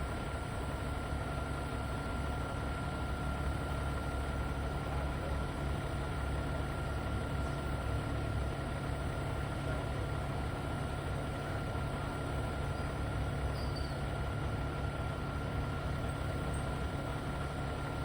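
A vehicle engine running steadily, a low even rumble with a thin constant tone above it.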